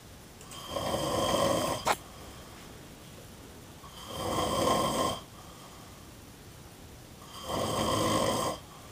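A sleeping man snoring: three long snores about three and a half seconds apart, with quiet breathing between them. A short sharp click ends the first snore.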